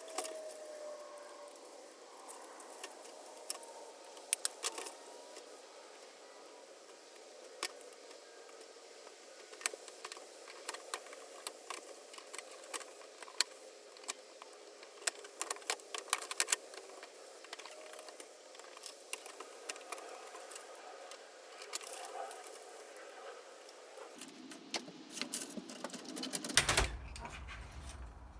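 Irregular light metallic clicks and clinks of hand tools and small metal parts as a ceramic hob is dismantled, over a faint steady hum, with a louder clatter near the end.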